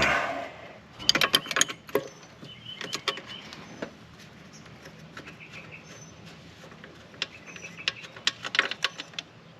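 Sharp metallic clicks and clinks of a wrench and small engine parts being handled, coming in clusters about a second in, near three seconds and again toward the end.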